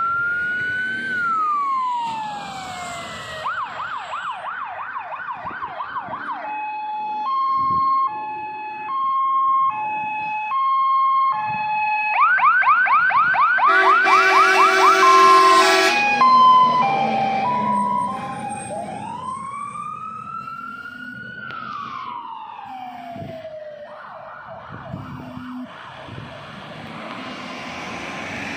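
Polish fire engine (GBA water tender) on an emergency run, its electronic siren switching between a slow rising-and-falling wail, a fast yelp and a two-tone hi-lo. About halfway through, loud multi-tone air horns blast for a couple of seconds over the yelp, after which the siren grows fainter as the truck moves away.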